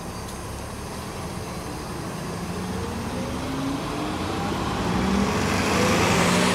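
Shuttle bus pulling away. Its engine hums steadily at first, then from about three seconds in a rising whine and a growing rush build as it accelerates past, loudest near the end.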